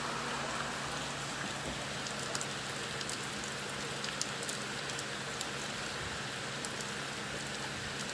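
Steady hiss of heavy rain, with scattered faint sharp ticks of drops and a low steady hum beneath.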